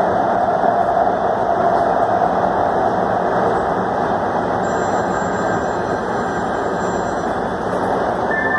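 Metro Red Line subway train running through a tunnel, heard from inside the car: a steady, loud rumbling noise. A faint high whine joins it from about halfway to near the end.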